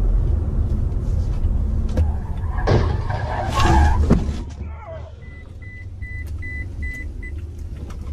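Car cabin noise from a moving car: a steady low engine and road rumble, louder around three to four seconds in. It drops quieter about five seconds in, and a run of short, evenly spaced high beeps follows, about three a second.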